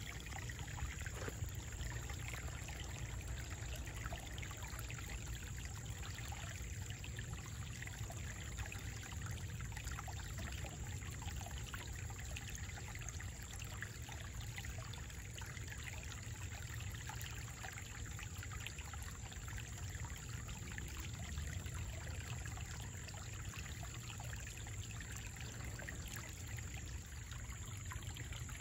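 Shallow rocky stream trickling and splashing steadily over a low step of stones.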